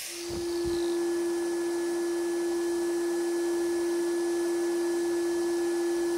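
Abrasive blasting cabinet running: a steady, pure whistle-like tone over a faint hiss, with two low thumps just after it starts.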